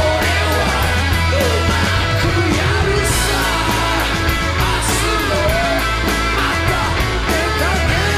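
Live rock band playing at full volume: a male singer belting a bending vocal line into the microphone over electric guitars and drums, with a cymbal-like hiss about three seconds in and again about five seconds in.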